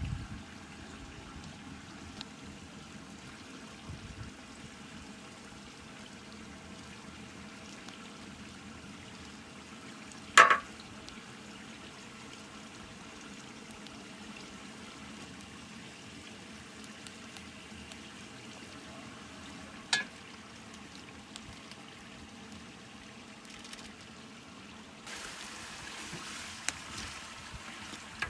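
Chicken and sauce for biryani cooking in a large aluminium pot over an open fire, with a steady low sizzle and simmer. A sharp knock comes about ten seconds in and a lighter click near twenty seconds. Near the end a brighter sizzle starts as the pot is stirred with a ladle.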